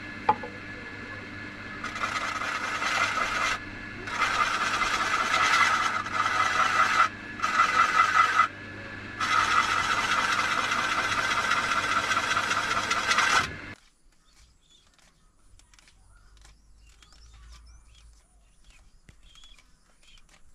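A motor-driven wood lathe running with a steady hum, a cutting tool scraping on the turning wood in four passes of a few seconds each, with short breaks between them. The sound cuts off suddenly about fourteen seconds in, leaving only faint clicks and light knocks.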